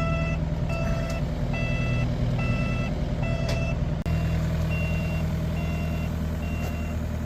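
Heavy diesel machinery running steadily while its backup alarm beeps about once a second. A few faint knocks come through, and about halfway through the beep turns thinner and higher.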